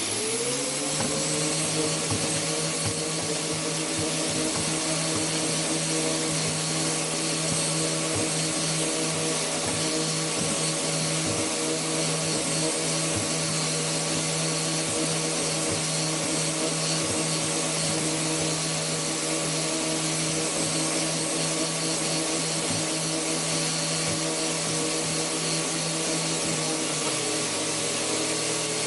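Grinder with a chainsaw-style blade spinning up and then running at a steady whine while it shreds a foam Nerf football, with an irregular low chatter from the foam hitting the blade. The pitch sags slightly near the end.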